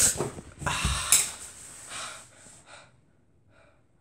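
A man's loud, rough breaths or grunts, a few heavy bursts in the first two seconds that fade away, falling almost silent about three seconds in.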